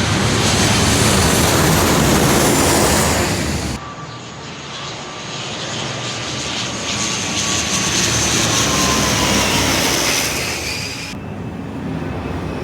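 Low-flying airplanes passing overhead, engine noise loud and full, with a high whine that slowly falls in pitch as one goes by. The sound changes abruptly about four seconds in and again near the end, where separate passes are cut together.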